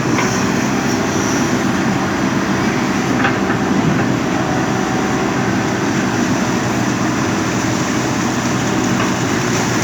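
JCB backhoe loader's diesel engine running steadily at working revs.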